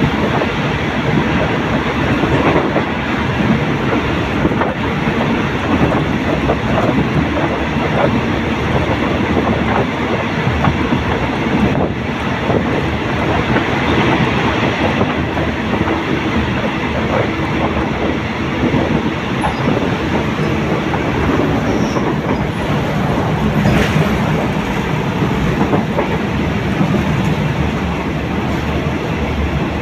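Thai passenger train running at speed, heard from an open carriage window: a steady rumbling rush with the wheels clacking over the rails.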